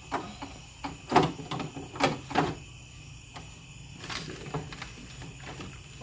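A few sharp clicks and knocks of parts being handled in a car door during a window regulator replacement, three louder ones close together in the first half and fainter taps later.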